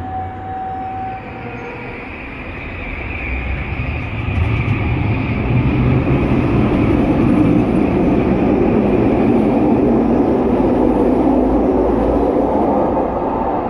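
SkyTrain train running alongside the platform. Its rumble builds over the first few seconds, then stays loud and steady while the cars go by, easing a little near the end.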